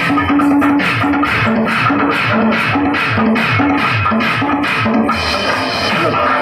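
Upbeat Telugu folk dance music with a fast, steady drum beat, about four to five beats a second, over a bass line that steps between notes.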